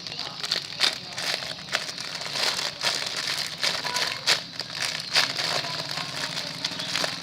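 Plastic crinkling and rustling in a rapid, irregular run of crackles as squishy toys are handled.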